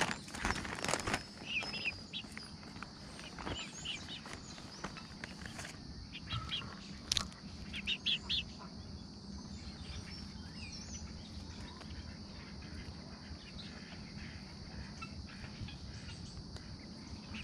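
Young chickens peeping and chirping in short notes, mostly in the first half, with a few sharp clicks around the middle. A steady, high hum of insects runs underneath.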